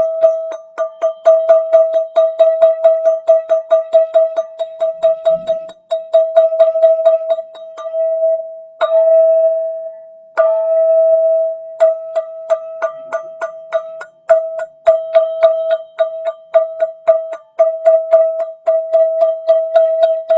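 Golden ZenTube struck rapidly and repeatedly, about five strikes a second, ringing on one steady pitch with bright overtones. The strikes stop briefly twice near the middle, leaving the tone to ring on.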